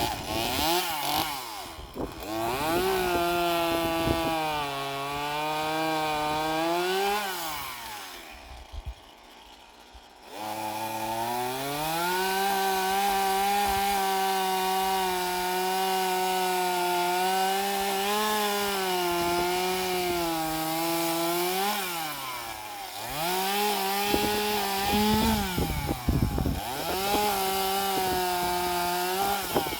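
Stihl MS 150 TC small top-handle two-stroke chainsaw running at high revs and cutting wood, its pitch sagging and rising again. About eight seconds in it drops low for a couple of seconds, then runs hard again through a long cut.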